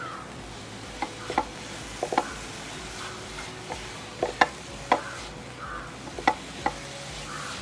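Silicone spatula stirring and scraping a thick coconut-and-jaggery filling in a nonstick frying pan, with about nine sharp, irregular knocks of the spatula against the pan over a steady low hiss.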